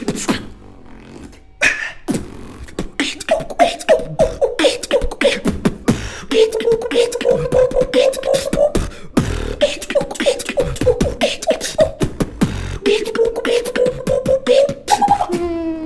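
Two beatboxers performing a tag-team routine into one handheld mic: fast drum-like clicks and snares, joined about three seconds in by a hummed bass line that stutters rapidly, with a short break halfway and a rising hummed note near the end.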